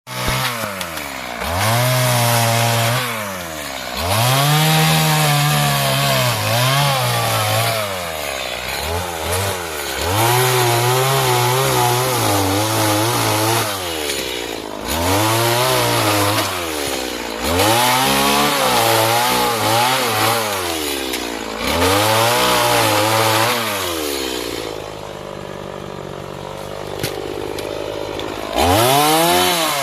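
Stihl MS 180 two-stroke chainsaw with an 18-inch bar cutting wood, its engine pitch rising and sagging every two to three seconds. It drops to a lower, steadier note about 25 seconds in, then revs up again near the end.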